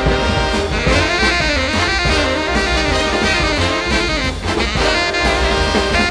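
Jazz backing music: saxophone and brass playing a melody over a drum kit.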